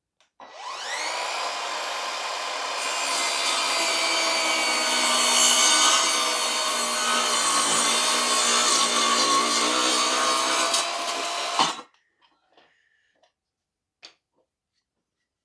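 Evolution R185SMS 18V cordless sliding mitre saw spinning up on its soft start, its motor whine rising over about a second. About three seconds in, the blade cuts into wood for roughly nine seconds. The electric blade brake then stops it abruptly.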